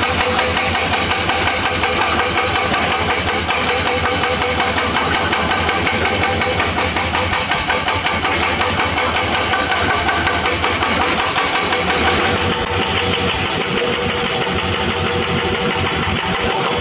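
Hydraulic rock breaker on a Komatsu PC200 excavator hammering limestone in a fast, steady run of blows over the excavator's running diesel engine. About twelve seconds in, the hammering gives way to the engine working on its own.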